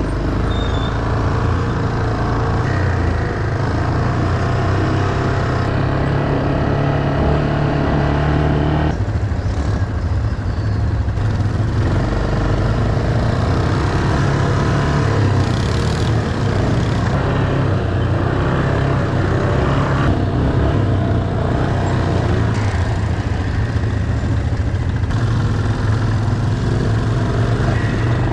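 ATV engine running with a rough, noisy hum, its note rising and falling several times as the throttle changes.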